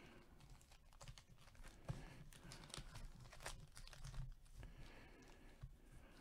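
Faint crinkling and light taps of sealed trading-card pack wrappers being shuffled and stacked by hand.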